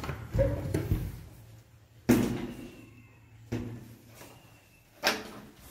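Wooden interior door being opened: the handle and latch clatter at the start, then three sharp knocks about a second and a half apart, the loudest about two seconds in.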